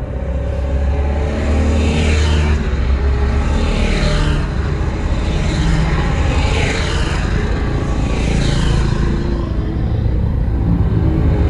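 Road vehicle on the move: a steady engine and road rumble, with a swish that comes back about every two seconds.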